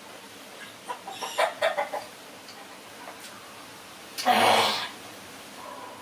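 A woman sneezes once, loudly, about four seconds in. About a second in there is a short run of brief, irregular sounds.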